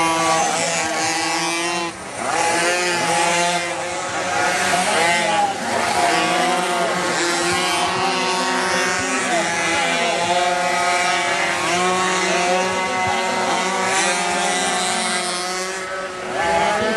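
Several minimoto pocket bikes' small two-stroke engines racing together, their overlapping revs rising and falling as the riders accelerate and brake through the corners.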